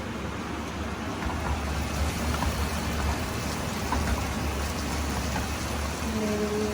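Food sizzling in hot oil in a pan: a steady sizzle with scattered small crackles over a low rumble.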